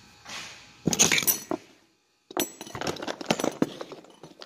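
Hand tools being handled on a workbench: a round chainsaw file picked up and a hard plastic tool case moved about. There is a loud clatter about a second in, then a run of irregular clinks, clicks and knocks.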